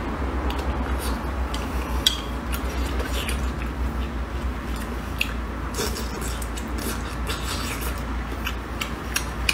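Eating sounds: wooden chopsticks clicking against a plate of meat in broth, with chewing and many short sharp clicks (one louder about two seconds in) over a steady low hum.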